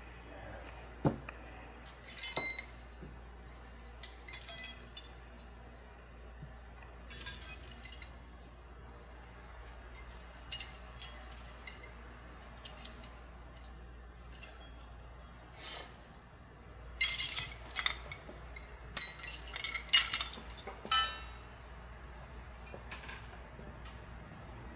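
Small steel parts of a disassembled 1886 Winchester lever-action rifle clinking against one another as they are picked through and handled. The clinks come in scattered clusters, busiest about two thirds of the way through.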